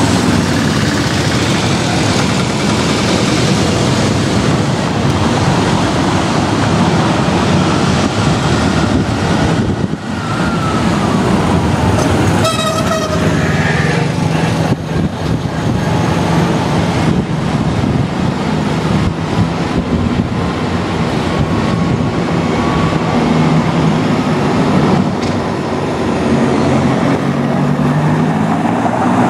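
Street traffic on a cobbled hill: vehicle engines running and a vintage electric tram passing, with a faint gliding whine. A short horn toot sounds a little before halfway.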